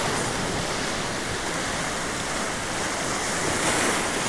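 Waves breaking and washing against jetty rocks: a steady rush of surf.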